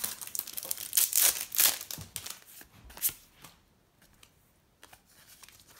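A Match Attax trading-card packet's wrapper being torn open, with a run of crinkling rips in the first two seconds and another about three seconds in, then quieter handling of the cards with a few light clicks.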